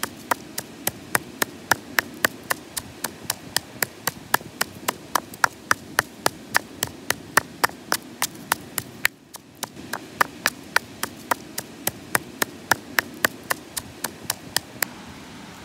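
Wooden pestle pounding salt, red chilies and garlic in a mortar: sharp, regular knocks about three to four a second, with a short break about nine seconds in, stopping just before the end.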